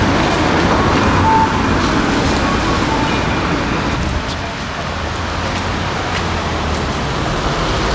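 Steady road traffic noise, a low rumble of vehicles, slightly louder in the first second or so.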